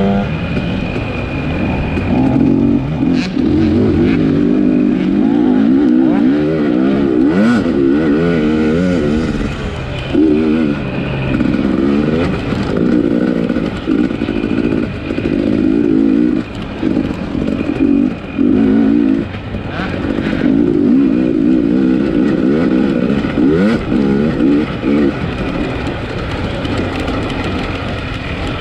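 A 250-class off-road race motorcycle's engine, heard from the rider's own bike, revving up and down continually as the throttle is rolled on and chopped. Its note breaks off in short dips every second or two.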